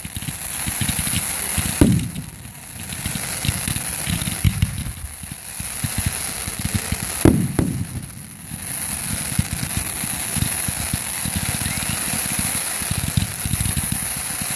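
Fireworks going off: two loud booms, about a second and a half and about seven seconds in, each trailing off, over a continuous low crackling rumble.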